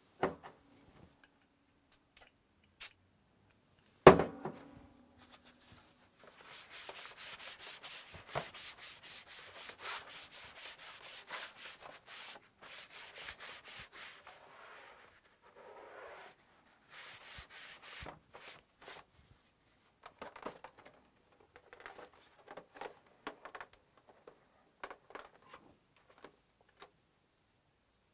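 A cloth rubbing back and forth in quick, even strokes, wiping down a PS4's plastic case, after a single sharp knock about four seconds in. Later the strokes turn sparse and irregular.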